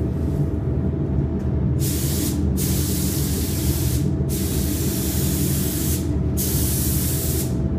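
Gravity-feed paint spray gun hissing in four passes of one to two seconds each, starting about two seconds in, as it sprays clear coat over fresh base coat. A steady low hum runs underneath.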